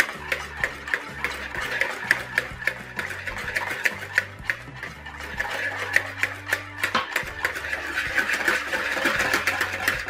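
Wire balloon whisk beating an oil, vinegar and mustard mixture in a plastic bowl: fast, continuous clicking and scraping of the wires against the bowl as the dressing is emulsified.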